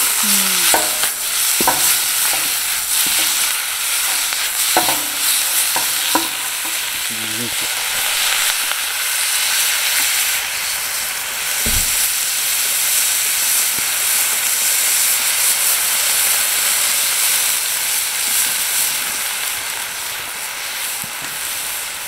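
Vegetables stir-frying in a wok over a wood fire, sizzling steadily, while a metal ladle clacks and scrapes against the wok during the first several seconds. About halfway through, water is poured into the hot wok and the hiss goes on.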